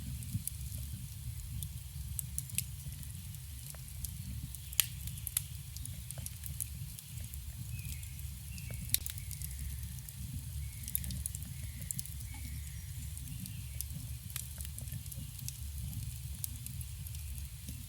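Campfire burning with scattered crackles and a few sharper pops over a steady low rumble. Faint short bird chirps come in around the middle.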